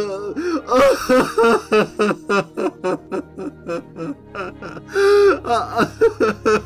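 A man's voice sobbing and wailing in character, in short choking gulps with a drawn-out wail about five seconds in, over background film music.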